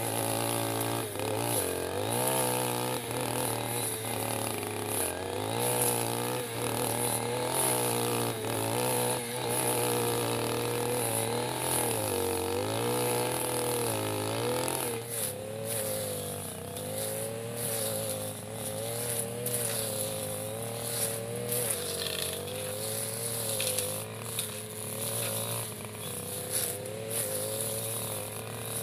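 Backpack brush cutter engine running as its blade cuts through thick grass, the engine speed rising and falling repeatedly, then running more evenly from about halfway through.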